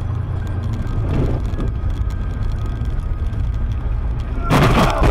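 Steady low road and engine rumble of a car sliding on a snowy highway, heard from inside the cabin. About four and a half seconds in, a loud half-second crash sounds as the car hits the metal highway guardrail.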